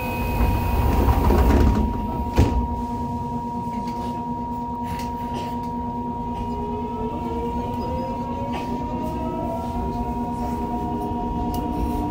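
Mitsubishi GTO-VVVF traction inverter of a Yokohama Municipal Subway 3000A train, heard from inside the car: from about six seconds in its whine climbs steadily in pitch as the train accelerates away from a stop. Earlier there is a louder rushing noise and a single knock about two seconds in, over a steady hum.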